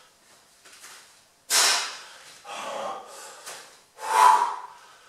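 Heavy breathing of a man working through T-push-ups: three hard, noisy breaths about a second apart, the loudest near the end.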